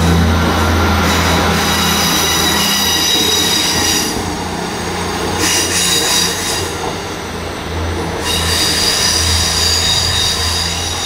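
Class 158 diesel multiple unit pulling away round a curve. Its wheels squeal against the rails in high, steady tones that fade and return several times, over the low hum of its diesel engines.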